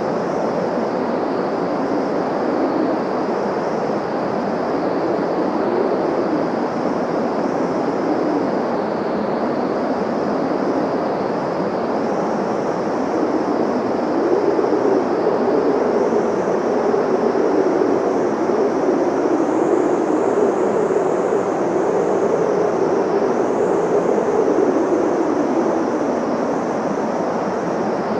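Blizzard wind blowing steadily, with a howling tone that wavers up and down in pitch and grows stronger about halfway through.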